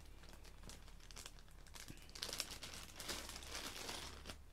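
Faint crinkling of a clear plastic bag of cooler mounting hardware as it is handled and pulled open, louder from about halfway through.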